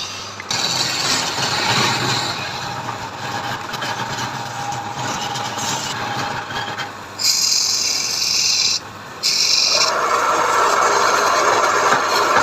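Wood being worked by hand, with steady rubbing and scraping, in several short segments that change suddenly.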